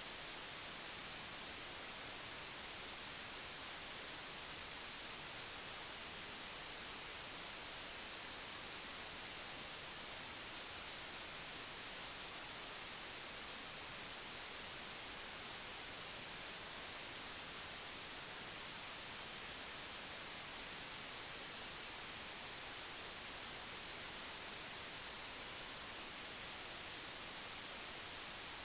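Steady, even hiss of static, strongest in the high frequencies, with no clicks, calls or other events standing out.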